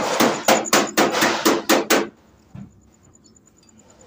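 Ratchet wrench on a long socket extension tightening the timing-chain tensioner bolt on a Toyota 2TR engine: a quick run of sharp metallic clicks, about four a second, that stops about two seconds in, with one faint knock after.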